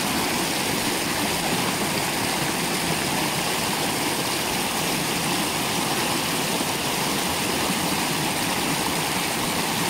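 Shallow rocky mountain stream rushing over stones, a steady, unbroken water noise.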